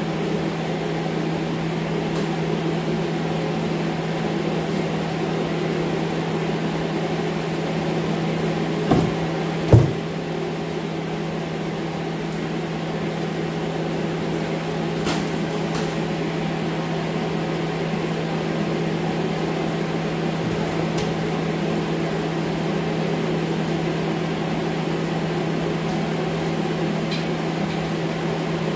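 Steady hum of an air scrubber's fan running throughout. Two short knocks come about a third of the way in.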